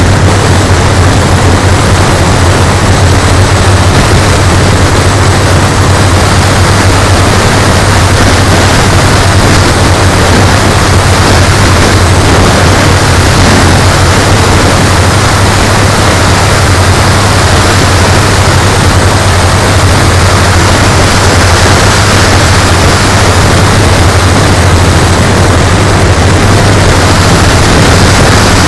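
Engines of a radio-controlled B-17G model bomber, a loud steady low drone under a dense hiss.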